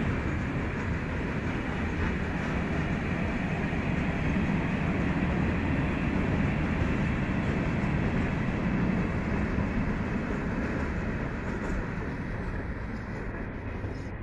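Freight train of covered hopper wagons rolling past on the track, a steady noise of wagon wheels on rail that eases off a little near the end as the last wagons go by.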